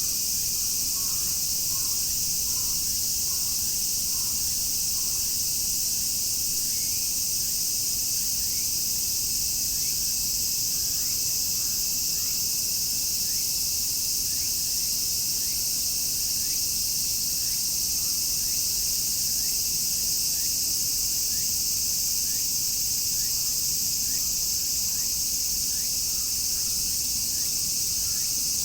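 Dense chorus of many cicadas singing together in a steady, high-pitched, unbroken drone. From about six seconds in, a faint short rising chirp repeats about once a second.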